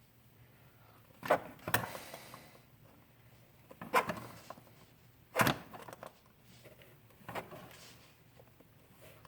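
Oil filter pliers gripping and working the engine's oil filter housing cap: several sharp clicks and knocks with quiet gaps between them, as the tight cap is forced to turn.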